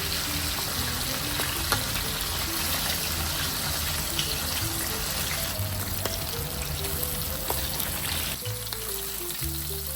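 Gentle background piano music over a steady rushing hiss of pouring or sizzling kitchen sounds, which fades about eight and a half seconds in; a few light clicks.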